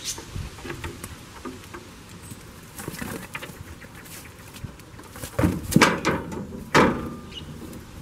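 A goat and a kid scuffling and stepping about in straw, with scattered small clicks and rustling. There is a cluster of loud sharp knocks about five and a half seconds in and another single knock near seven seconds.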